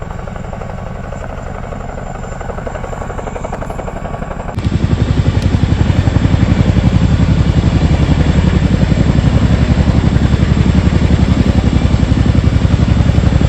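Helicopter rotor beating with a rapid, even pulsing, which gets abruptly louder about four and a half seconds in.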